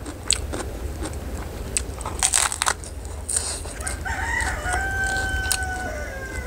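A rooster crows once, starting about four seconds in: a wavering opening, then a long held note that drops at the end. Before it come crunchy bites and chewing close to the microphone.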